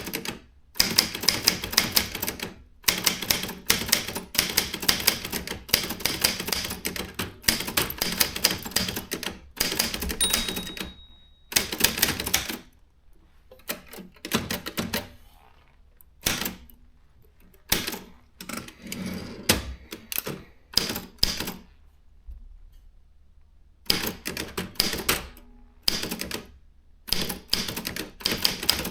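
Consul 1502 typewriter being typed on: runs of rapid key strikes in bursts of a few seconds, broken by short pauses, with a single short ringing tone about ten seconds in.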